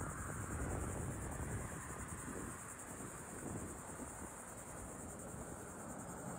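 Faint outdoor background: a steady high-pitched buzz over a low rumble.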